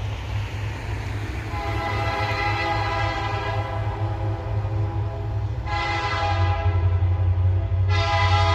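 Diesel locomotive air horn blowing a long, steady chord over the low rumble of the locomotive's engine. The horn comes in about a second and a half in and sounds fuller again near the end.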